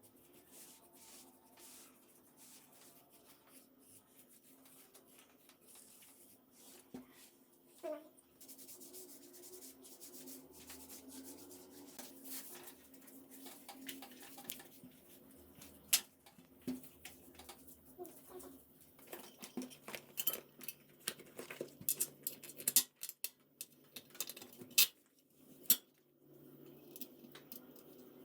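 Scattered metal clicks and clinks of hand tools and small parts being handled, growing busier in the second half with several sharp clicks, over a faint steady hum.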